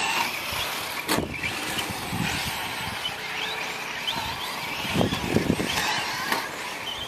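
Electric 1/10-scale short-course RC trucks racing on a dirt track: high-pitched motor whines rising and falling as they speed up and slow down, with two sharp knocks, about a second in and again near the end.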